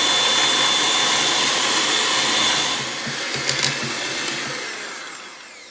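Electric mixer running, creaming butter and sugar together. It holds steady, then dies away over the last few seconds, with a few light clicks about three and a half seconds in.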